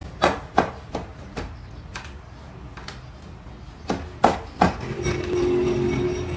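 Hand-weaving loom: the wooden beater and sticks knocking sharply and irregularly against the loom as the weft is packed in, in two clusters. A low steady tone comes in about five seconds in.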